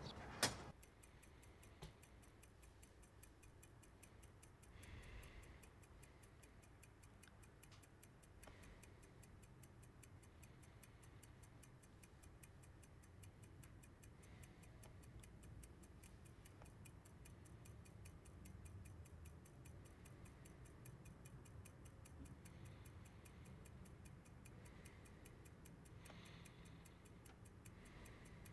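Faint, steady ticking at a regular beat, with one sharp knock just after the start.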